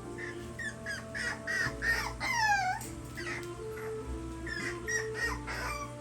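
A puppy whimpering and crying in a string of short, high yelps, with one longer whine that falls in pitch about two and a half seconds in.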